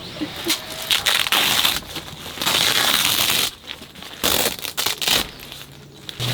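Stiff tent fabric being handled and scrunched while a stove jack is cut and fitted: irregular crinkling and crunching, with a long continuous stretch in the middle and a few sharp rustles later.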